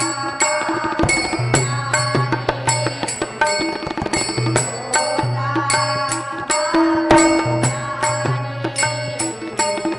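Marathi devotional bhajan: women's voices singing over a harmonium, with small brass hand cymbals (taal) struck in a steady beat.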